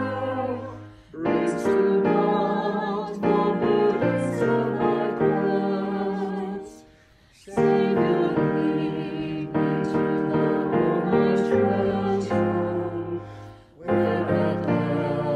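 A small mixed choir of men's and women's voices, recorded separately and mixed together, singing a slow hymn with piano accompaniment. The singing comes in phrases with short breaths between them, about a second in, about seven seconds in and near the end.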